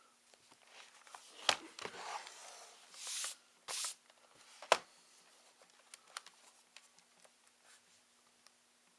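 Hands working on a laptop's plastic case and parts with a screwdriver: scattered sharp clicks and taps, the loudest about halfway through, and two short scraping rustles in the middle, over a faint steady hum.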